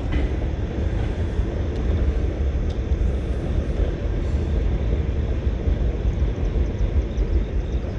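Wind buffeting the camera microphone: a steady low rumble that rises and falls unevenly, with a couple of faint ticks about two and three seconds in.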